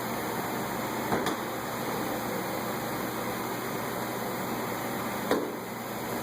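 Two sharp plastic clicks, one about a second in and a louder one near the end, from work on a car's front bumper cover. Under them runs a steady background hiss.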